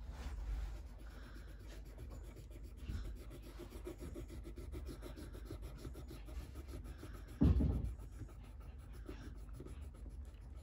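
Pencil scratching on paper in quick back-and-forth shading strokes, with a single dull thump about three-quarters of the way through.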